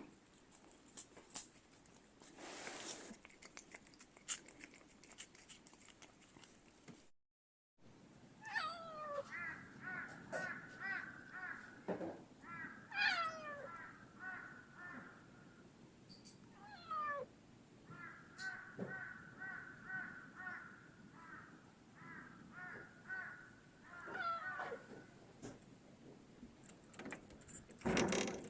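A cat meowing over and over, starting about eight seconds in. The calls fall in pitch, and quick stuttering runs of trilled notes come between them.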